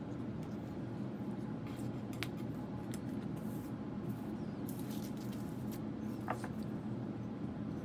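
A steady low hum, with scattered light clicks and short scraping sounds over it.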